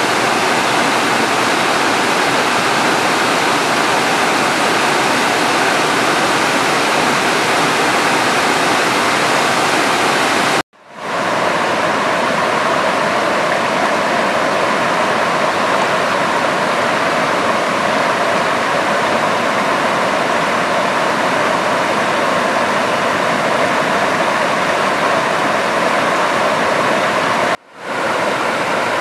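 Water pouring over a reservoir's concrete spillway as the tank overflows: a loud, steady rush of cascading water. It cuts out abruptly for a moment twice, about eleven seconds in and near the end.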